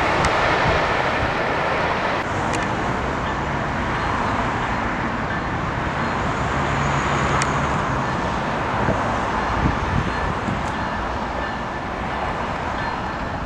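A CN freight train approaching behind its diesel locomotive, making a steady rumble of engine and rail noise.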